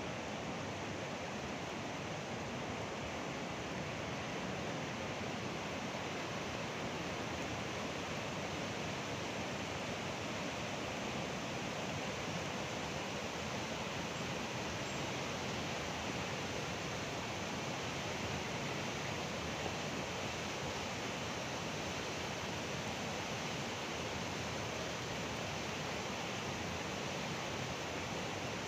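Muddy flash-flood torrent rushing past, a steady noise of fast churning water.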